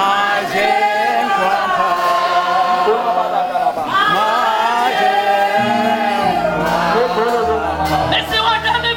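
Group of voices singing a slow gospel worship song in long, gliding held notes; about six seconds in, low sustained instrumental notes come in underneath.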